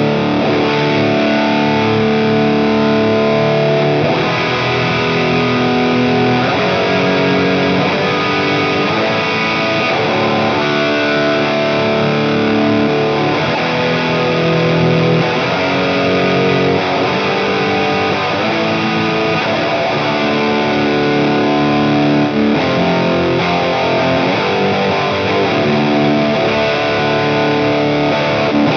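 Electric guitar played through a Line 6 Helix Plexi-style amp model, driven by a King of Tone overdrive set to maximum gain on both sides for a crunchy distorted rock tone. It plays a run of chords and notes at a steady level.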